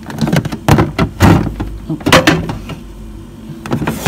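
Refrigerator door being opened and things handled inside: a few sharp knocks and thuds, about a second in, again just after, and two seconds in.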